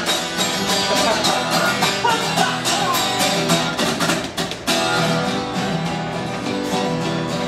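Acoustic guitar strummed in a steady rhythm, accompanying a live song.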